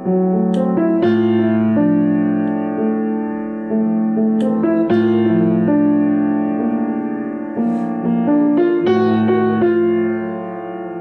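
Solo grand piano playing a slow jazz piece: held chords in the low and middle register, renewed every few seconds, with melody notes above them.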